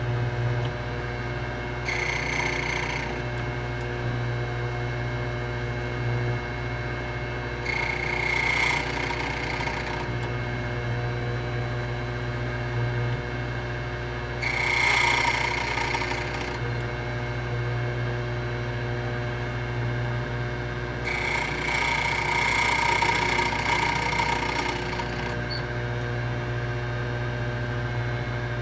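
HPC Blitz 1200 electric key machine running with a steady motor hum, broken by four louder stretches of cutting as key blanks are worked, the longest lasting about four seconds near the end.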